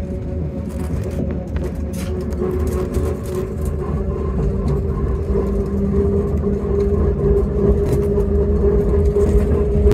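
The Yellow Train's narrow-gauge electric railcar running along the track, heard from inside the carriage: a steady rumble with a humming tone that grows a little louder from about two seconds in.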